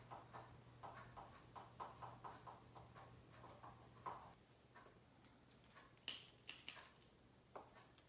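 Faint, irregular small taps and clicks, with a few sharper clicks about six seconds in.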